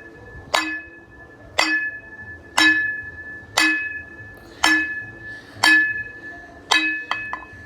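A hard object that rings like glass or a bell, struck seven times at an even pace of about once a second. Each hit rings with the same clear tone and dies away. A few lighter clicks come near the end.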